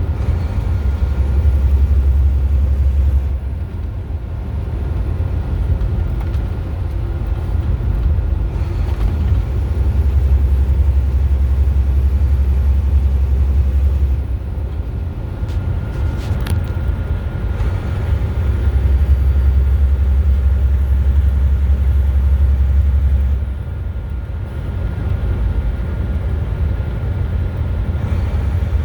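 A car driving on the highway: a steady low road rumble that swells louder for a few seconds about every eight to nine seconds.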